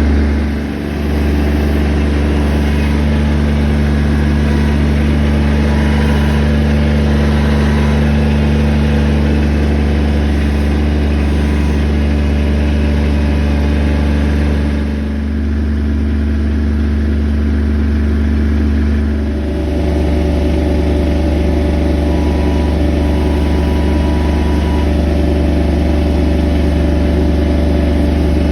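An engine running steadily, with brief dips in level about a second in, around fifteen seconds in and again near twenty seconds, where its pitch shifts and then holds.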